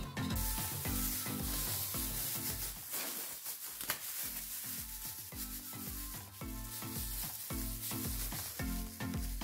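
Thin plastic bag crinkling and rustling as it is handled and twisted shut around minced meat, over background music with a steady beat.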